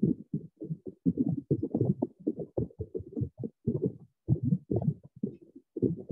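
Muffled, indistinct voice talking in short bursts, with only the low part of the voice coming through.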